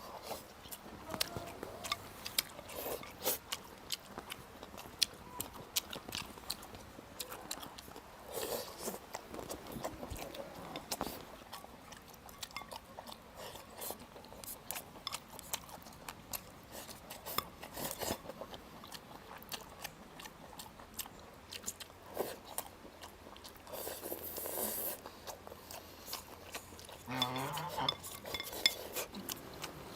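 Close-up eating sounds: chewing and biting, with chopsticks and spoons clicking against bowls and plates, in scattered short bursts.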